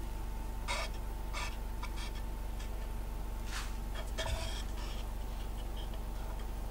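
A few short scrapes and clicks of a small plastic spreader and a plastic cup being handled while epoxy is spread on a wooden board, over a steady low hum.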